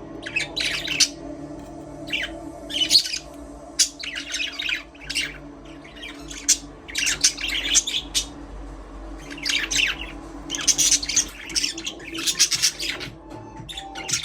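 Budgerigars chirping and chattering in repeated short bursts, over a steady low hum.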